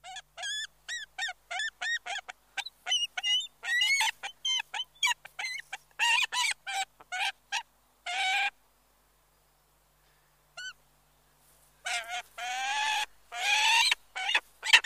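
Golden eagles calling: a quick run of short, high yelping calls, about three a second, then after a pause a few longer, harsher calls that fall in pitch.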